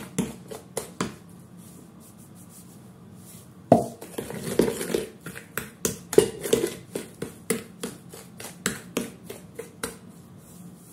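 A fork scraping and knocking against a mixing bowl as softened butter is creamed with sugar, in irregular strokes. The strokes stop for about two seconds after the first second, then pick up again with a sharp knock about four seconds in and go on until near the end.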